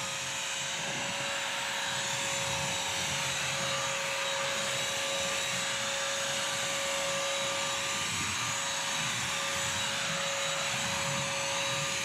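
BISSELL Crosswave wet/dry vacuum-mop running, a steady motor whine over a rushing hiss, as it is pushed across a tile floor sucking up a spill of raw egg and shells.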